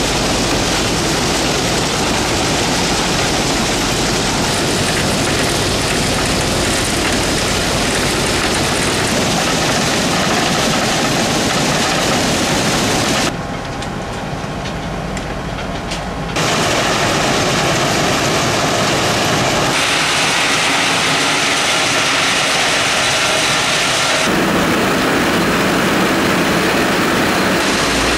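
Heavy rail track-maintenance machinery at work: a long train of ballast hopper wagons with conveyor belts moving slowly along the track, a steady rushing din of engines, wheels and moving gear. The sound changes abruptly several times, with a quieter stretch about halfway through.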